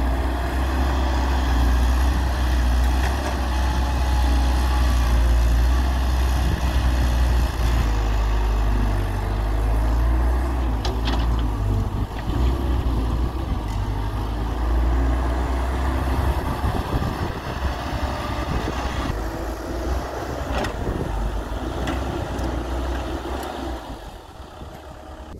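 Diesel engine of a Hyundai Robex 1300W wheeled excavator running steadily as it digs and dumps soil into a tractor trolley, with a few sharp knocks along the way. The engine sound drops off near the end.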